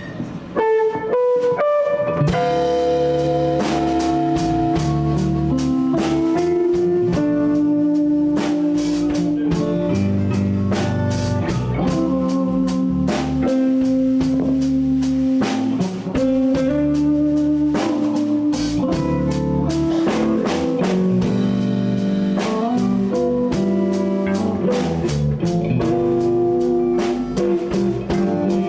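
Live blues band playing a slow blues in D, instrumental: a few lone electric guitar notes, then drums, bass and lead guitar come in together about two seconds in and carry on in a slow, steady groove.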